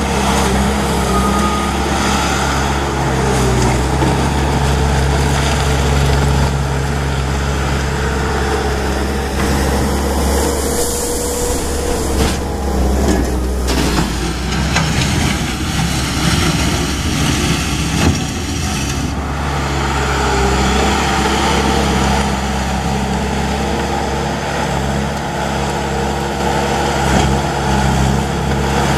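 Diesel engine of a Bobcat T250 compact track loader idling steadily.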